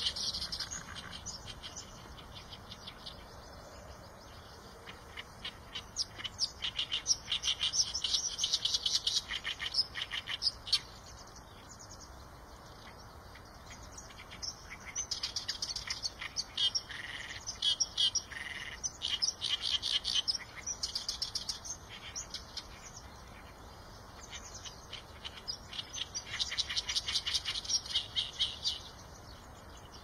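Song of the small songbird known in Vietnamese as chim sẻ đồng: long phrases of rapid, harsh, repeated chirping notes, each lasting a few seconds, with short pauses between them.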